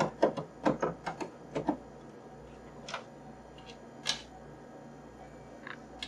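Sharp little clicks and taps of a small screwdriver working screws out of an iMac G3's plastic back cover. A quick, irregular run of clicks comes in the first second and a half, then a few scattered single taps.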